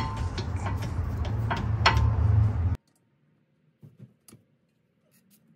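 Ratchet wrench clicking as it works a 12 mm brake caliper bolt loose, a sharp metallic click about every half second over a low steady hum. The sound cuts off abruptly about three seconds in, leaving a few faint clicks.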